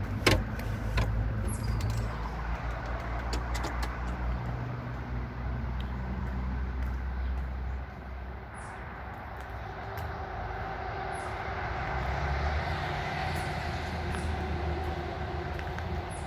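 Steady low outdoor rumble with a noisy haze, and a few sharp clicks in the first second.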